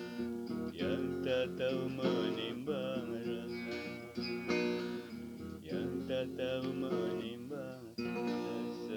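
Instrumental music: guitar strumming under a lead melody that wavers in pitch.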